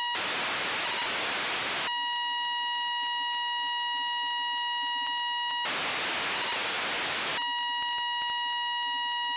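FM-demodulated downlink audio from the AO-92 (Fox-1D) amateur satellite: a steady buzzy tone around 1 kHz. It breaks twice, for under two seconds each time, into loud FM static hiss where the signal drops out.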